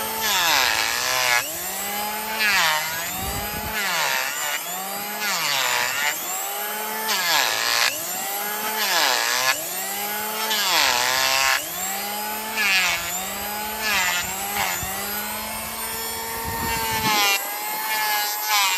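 Handheld electric planer shaving down a hoof. Its motor pitch sags each time the blade bites into the horn and picks back up between cuts, again and again, with a harsh rasp on every pass.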